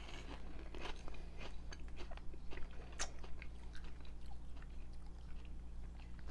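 A person chewing a mouthful of puffed cinnamon corn snacks (Cheetos Sweetos): faint, irregular soft crunches, with one sharper crunch about three seconds in.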